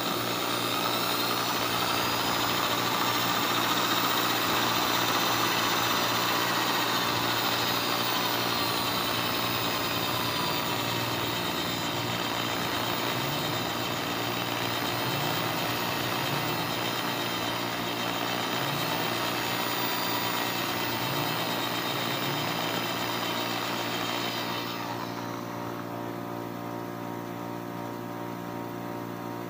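Handheld electric drill running steadily as its bit cuts a hole through the spine of a steel knife blade; the motor's whine wavers slightly in pitch under load, and its higher hiss fades near the end.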